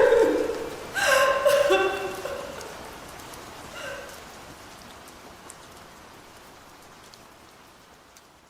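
Steady rain hiss fading out gradually toward the end. A short pitched sound comes about a second in, and a fainter one near four seconds.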